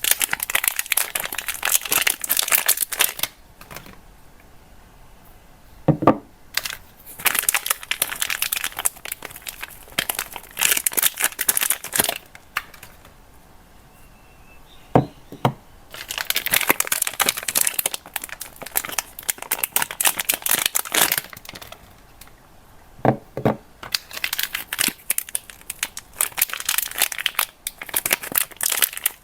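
Soap wrappers being crinkled and torn open in bursts of several seconds, with quieter pauses between. A few short, soft knocks are heard, about 6, 15 and 23 seconds in.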